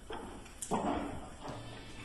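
Pool cue striking the cue ball, then about half a second later a sharp click as the cue ball hits an object ball.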